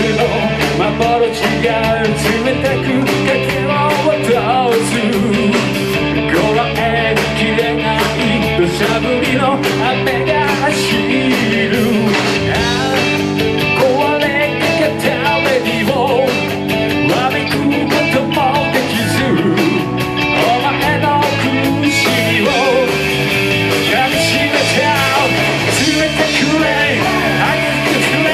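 Rock band playing live: guitar, bass and drums, with a wavering, bending lead line over the top.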